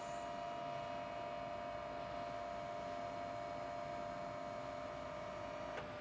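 Hydraulic system running with a steady whine while the ICF sweeper arm cylinders on a Geringhoff corn head are bled of air, the arms moving under pressure. A short hiss comes right at the start and a single click near the end.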